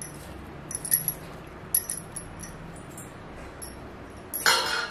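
Light metallic clinks of kitchen utensils: a few brief taps about one and two seconds in, then a louder, ringing clatter near the end.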